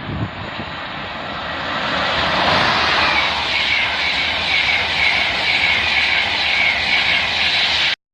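A train passing at speed: a rushing roar builds over the first couple of seconds, holds loud and steady with a faint regular pulsing, then cuts off abruptly near the end.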